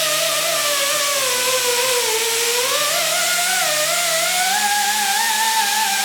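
A handheld power tool spins a polishing wheel against an aluminium intake manifold. Its motor whine sinks in pitch under pressure, climbs again and falls near the end, over a steady hiss of the wheel on the metal.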